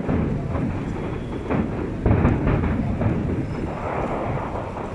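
Aerial fireworks shells bursting one after another, a continuous rumble of booms with sharper cracks about two seconds in.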